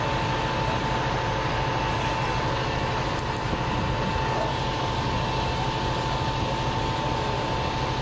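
A heavy truck engine, most likely a fire engine's, running steadily with a fast low rumble and a steady high whine over it.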